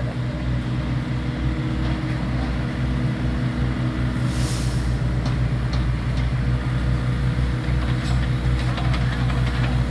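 Heavy construction machine's engine running steadily at a dig site, with a short hiss about four and a half seconds in and a few light clanks later on.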